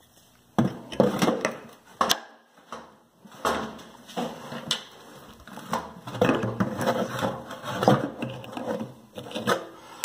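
Claw hammer knocking and scraping at the corroded cast-aluminium spider arm of a front-load washer drum, breaking it loose: irregular sharp knocks and gritty scrapes, starting about half a second in.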